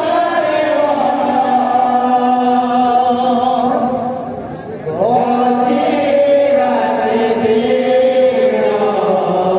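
Men's voices chanting a devotional kirtan together on long held notes. The chant dips briefly about four seconds in, then comes back in with an upward slide.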